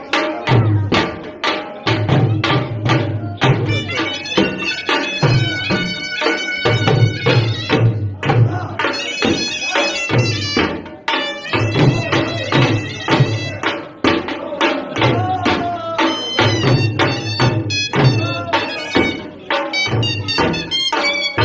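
A surnai (folk shawm) playing a piercing melody over two dhol drums beaten with sticks in a fast, steady rhythm.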